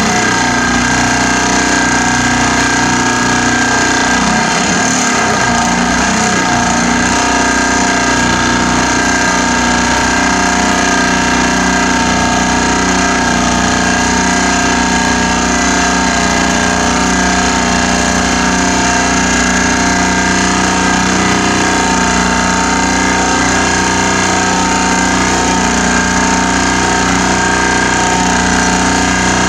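Vibratory pile driver running steadily as it sinks a steel profile pile: a loud, continuous machine hum at a constant pitch, with no separate hammer blows.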